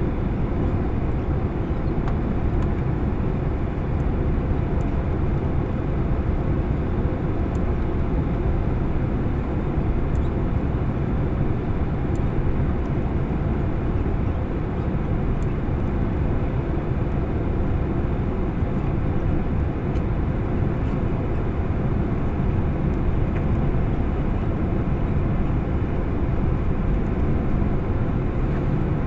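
Cabin noise inside a Boeing 767-300 on final approach: a steady low roar of the engines and the airflow, heard through the fuselage.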